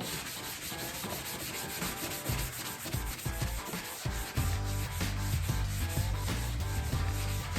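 Sanding of birch plywood squares, a continuous rubbing sound, under background music with a steady beat and a bass line that comes in about two seconds in.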